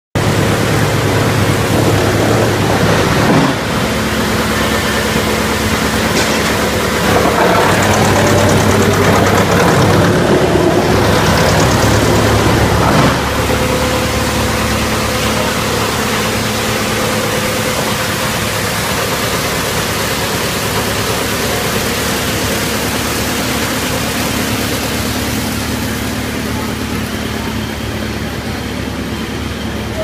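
Electric drum wood chipper running: a steady low machine hum under loud, even noise. It grows louder and rougher for several seconds in the first half, then settles and eases off slightly toward the end.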